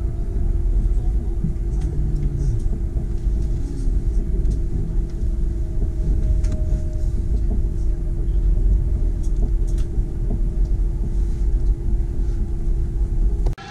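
Cabin noise of a Chinese high-speed train running at speed: a steady, heavy low rumble with a constant hum. It cuts off suddenly near the end.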